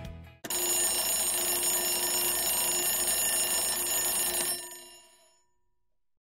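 Alarm bell ringing continuously, in the manner of an alarm clock, starting abruptly and lasting about four seconds before fading out: the timer's signal that the countdown has run out.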